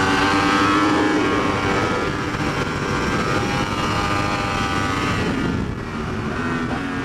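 Yamaha R1's crossplane inline-four engine running steadily as the bike is ridden at speed on track, with wind rush over the helmet camera. The engine note eases a little near the end.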